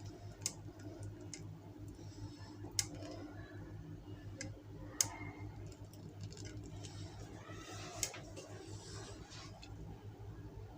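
Faint utensil clicks against a pot or cake mould, four sharp ones a few seconds apart, with soft scraping between them, as thickened lemon cream is poured and spread over a cake layer. A low steady hum sits underneath.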